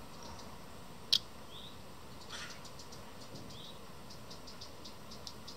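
Fledgling birds chirping faintly: a couple of short high calls early, then a fast run of thin, high chirps from about halfway. One sharp click about a second in is the loudest sound. The chirping is taken for a sign that the fledglings are hot under the sun-heated metal roof.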